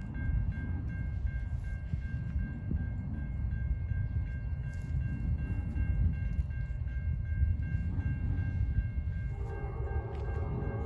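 Train passing: a steady heavy low rumble with a thin steady high whine over it. A short horn-like chord sounds near the end.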